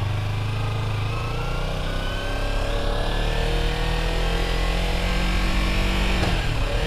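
Sportbike engine pulling in gear, its pitch rising slowly as the motorcycle gains speed, heard from the rider's seat.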